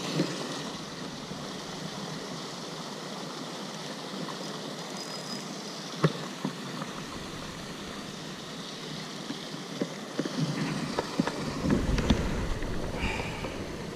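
Steady outdoor rushing noise, with one sharp click about six seconds in and a run of close knocks and rustling near the end as the fish and camera are handled.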